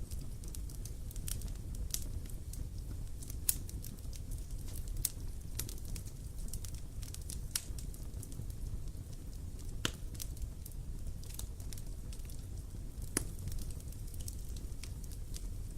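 Campfire burning steadily, with a low rumble of flame and irregular crackles and pops of burning wood, a few of them sharper than the rest.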